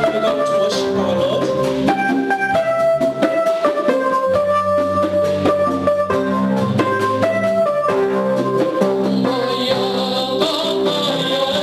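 Instrumental church worship music: sustained melodic instrument notes over a steady drum beat, with no singing.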